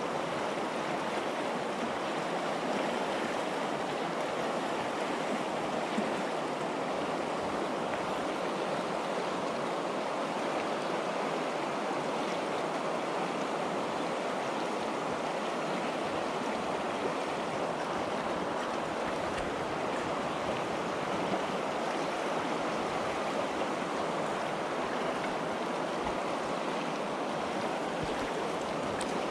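The Najerilla river's current rushing steadily, an even unbroken sound of flowing water.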